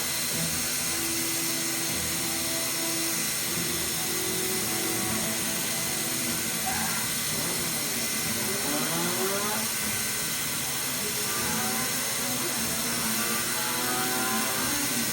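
Steady hiss of a hot-air plastic welding gun blowing, with short notes of background music over it.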